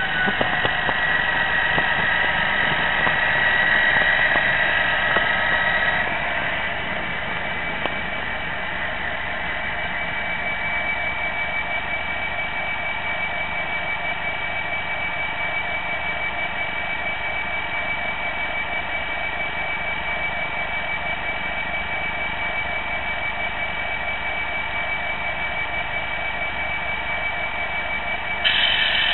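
Model diesel locomotive's DCC sound decoder playing a diesel engine sound through its small speaker. The pitch falls over the first few seconds as the train slows to a stop, then settles into a steady idle with a thin high whine.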